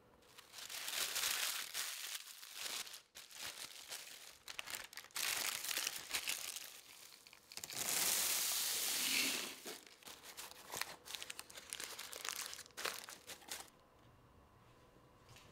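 Crinkling, rustling handling noise in irregular bursts, with a longer, louder stretch about eight seconds in.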